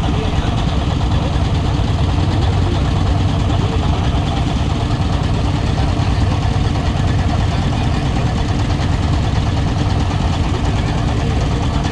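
Ship's engine running steadily, a constant low hum with a dense mechanical noise over it.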